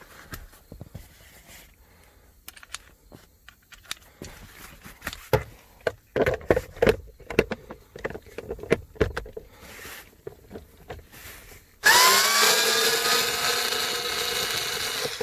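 Scattered clicks and taps of a driver bit and extension being fitted and worked against screws. About twelve seconds in, an electric screwdriver or drill motor spins up with a short rising whine and then runs steadily, backing out a screw.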